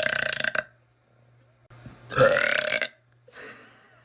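A girl burping: one long burp ends just after the start, a second long, loud burp comes about two seconds in, and a fainter breathy sound follows near the end.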